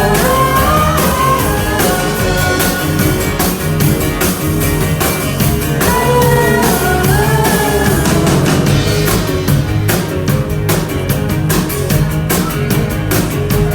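A live rock band playing: drums, guitar and bass, with a singer's melody lines near the start and again around the middle. The drumming grows busier in the second half.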